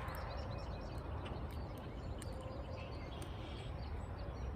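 Outdoor ambience: scattered bird chirps over a steady low wind rumble.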